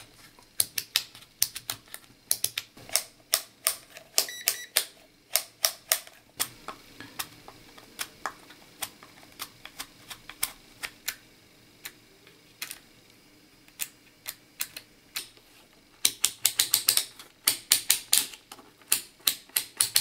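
Rotary selector switches of pocket digital multimeters being turned by hand, clicking through their detents. The clicks come in quick runs of sharp ticks with short pauses between, busiest near the end.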